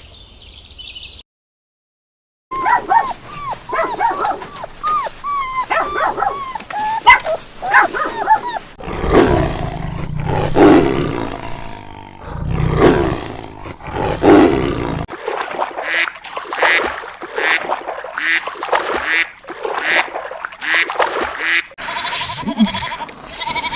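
Dogs barking and growling in a string of short calls, after a brief silence near the start.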